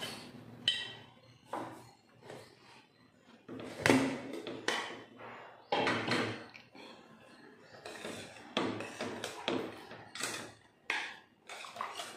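Irregular metal clanks, knocks and taps as a pressure cooker is handled: its weight and lid are taken off and a ladle knocks about in the pot. A few of the knocks ring briefly.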